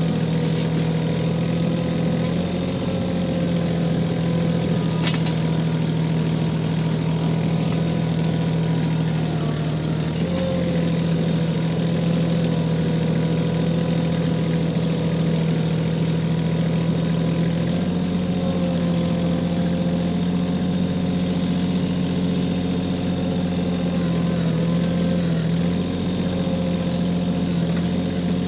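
Kioti CK4010 compact tractor's diesel engine running steadily as it drags snow with a rear blade, its pitch shifting slightly a few times. A brief click about five seconds in.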